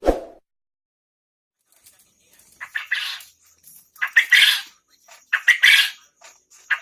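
Quail calling loudly in a steady series, one burst about every second and a quarter, beginning about two and a half seconds in. A brief low thud at the very start.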